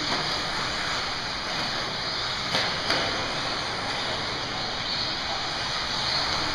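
1/10-scale 4x4 RC buggies running on an indoor track: a steady hiss of motors and tyres echoing in a large hall, with two sharp knocks close together about two and a half seconds in.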